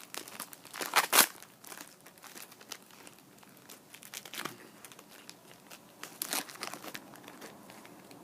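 Trading-card pack wrapper being torn open and crinkled: bursts of crinkling and tearing, loudest at the start and about a second in, with quieter rustles later.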